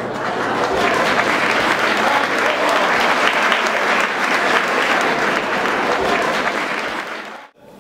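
A crowd applauding, many hands clapping together, fading out near the end.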